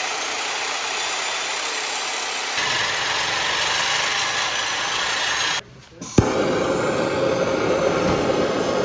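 Corded angle grinder running against a rusted, seized turbo-to-downpipe stud, a steady harsh noise. The sound changes about two and a half seconds in and drops out briefly near six seconds. After a sharp click, a torch flame hisses steadily as it heats the rusted stud.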